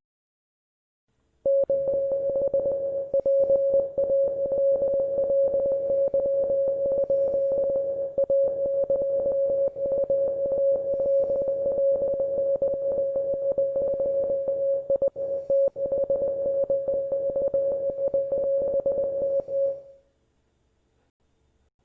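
Morse code sent as a single steady-pitched beep, keyed rapidly on and off for about eighteen seconds, starting about a second and a half in and stopping near the end.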